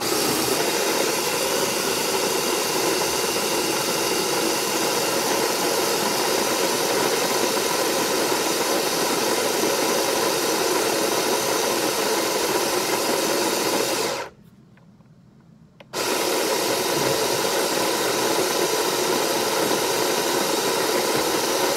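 Electric burr coffee grinder grinding whole coffee beans, its motor running with a steady noise. It cuts off suddenly about 14 seconds in and starts again under two seconds later.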